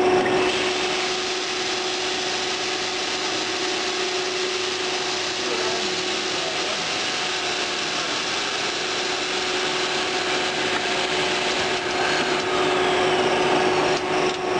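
HDPE pipe extrusion line running: steady machinery noise with a constant hum.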